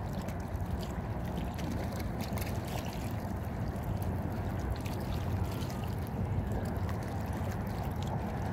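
Steady seaside ambience: wind rumbling on the microphone over small waves lapping at the water's edge, with faint ticks and splashes.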